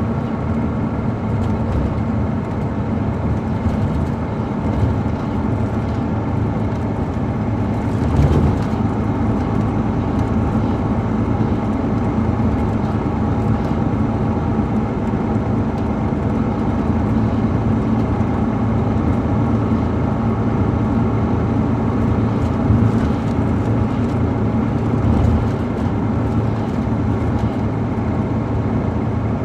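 The Caterpillar C13 ACERT straight-six diesel of a 2007 MCI D4500CL coach running steadily, heard from inside the bus while under way, with a brief thump about eight seconds in.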